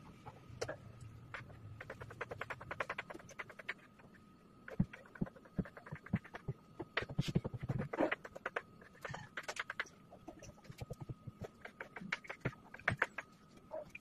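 Plastic drinking straws clicking and rattling against each other and against a plastic-covered tabletop as they are pushed and tapped into line by hand, in quick irregular runs of light ticks with a few sharper clicks. A faint steady high whine runs underneath.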